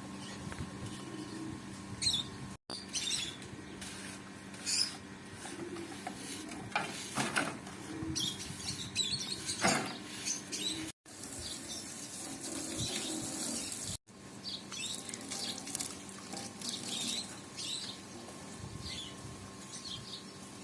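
Birds chirping in short, scattered calls over a faint steady hum, cutting out briefly three times.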